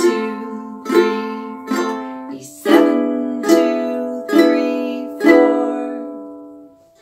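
Ukulele played with single down strums about one a second: an F chord strummed, then a change to E7 about two and a half seconds in and four E7 strums. The last E7 is left to ring and fade out, the rest before the pattern repeats.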